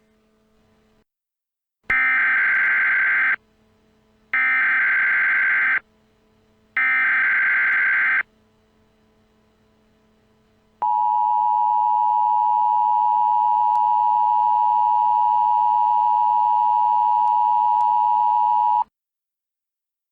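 Emergency Alert System SAME header: three short bursts of warbling data tones, each about a second and a half long. After a pause comes the steady two-tone EAS attention signal, held for about eight seconds and cut off sharply. This is the sequence that opens a new alert.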